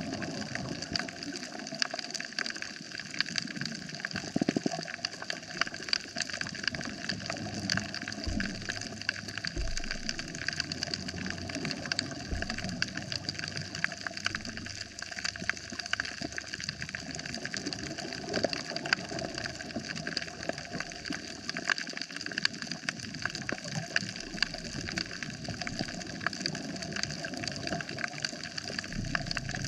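Underwater coral-reef soundscape: a steady crackle of many fine clicks over a constant hiss, with a few soft low thumps in the first half.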